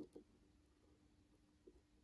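Near silence: a faint steady hum, with a couple of soft clicks at the start and another near the end as fingers work a wire lead into the lugs of a push-pull potentiometer.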